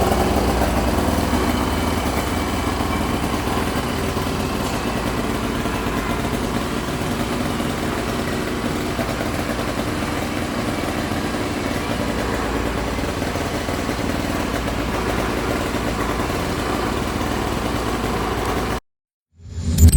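2024 Arctic Cat Catalyst snowmobile engine idling steadily. It cuts off suddenly near the end.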